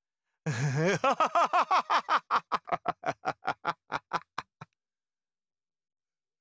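A man's laughter: a long drawn-out note that wavers in pitch, then a quick run of short "ha" pulses that grows fainter and stops about four and a half seconds in.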